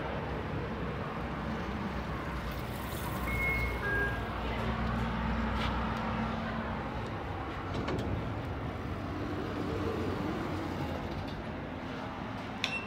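Schindler 3300 elevator in use: a steady low hum with street traffic noise around it. There are two short high beeps about three seconds in, a steady drone for a few seconds after them, and a sharp click near the end.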